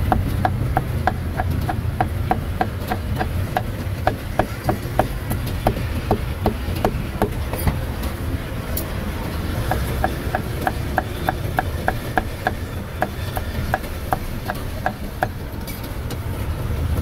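Steel meat cleaver chopping roast beef on a round wooden chopping block: fast, even chops about four a second, slowing for a moment about eight seconds in and stopping shortly before the end, over a steady low rumble.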